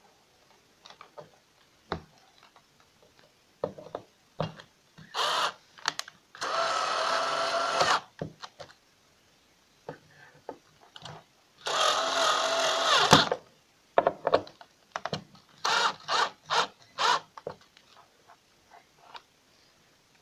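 Cordless drill-driver running twice, about a second and a half each time, about six and twelve seconds in, driving screws to refit a sofa's metal bracket. Short clicks and knocks of handling the parts come in between.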